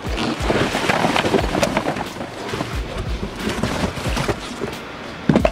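Handling noise: plastic-bagged car parts and cardboard boxes rustling and knocking, with wind buffeting the microphone.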